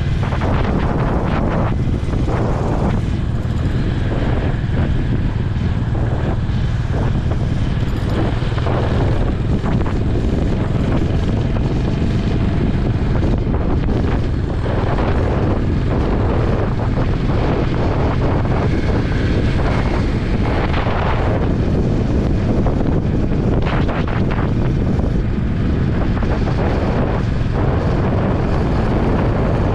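Honda H'ness CB350's single-cylinder engine running steadily at road speed, with heavy wind noise buffeting the microphone.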